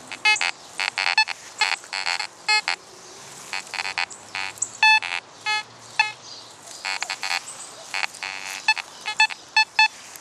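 Fisher F44 metal detector sounding a rapid string of short electronic target beeps at several pitches as the coil sweeps over the ground. With the iron volume turned up to its maximum of 20, many are iron responses, the display reading numbers in the single digits and teens, mixed with higher tones.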